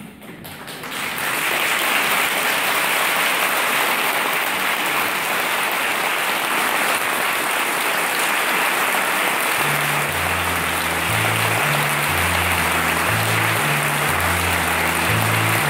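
A theatre audience applauding, starting about a second in and then holding steady. Well past halfway, music with a stepping bass line comes in under the clapping.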